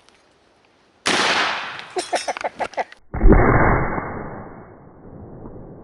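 A gunshot, slowed down: one deep, sudden boom about three seconds in, fading out slowly over a couple of seconds. It follows a couple of seconds of loud hiss.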